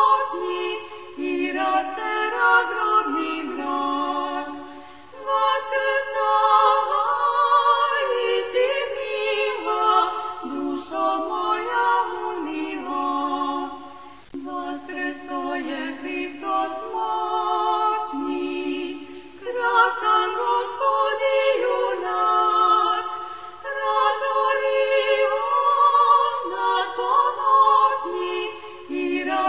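Unaccompanied choir singing a slow hymn in harmony, holding long notes with vibrato, with short breaths between phrases.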